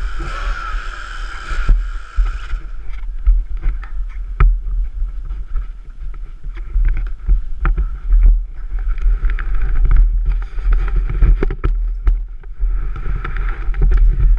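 Small two-stroke dirt bike engines, including a Kawasaki KDX200, running at idle with irregular popping, under heavy low rumble and buffeting of wind on the camera microphone.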